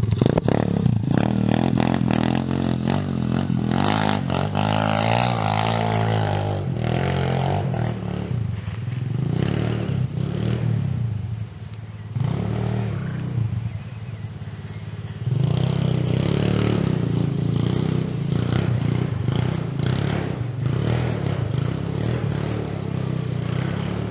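Pitster Pro pit bike's big-bore single-cylinder four-stroke engine revving up and down as it is ridden. The engine note drops away for a few seconds around the middle, then comes back loud.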